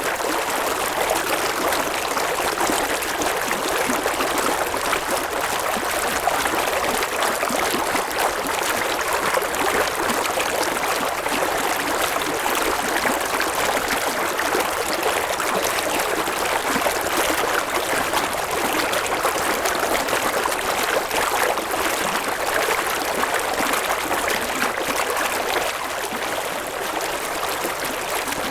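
River water running and babbling over rocks in a steady, even rush.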